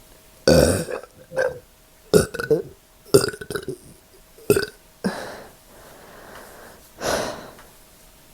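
A person burping repeatedly with an upset stomach: a run of short burps, some coming in quick clusters, the loudest about half a second in.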